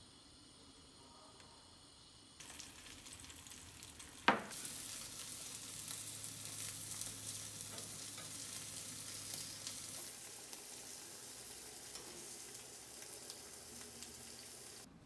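Food frying in a pan: a faint sizzle, then a sharp clack about four seconds in, after which a steady, louder sizzle runs until it cuts off suddenly near the end.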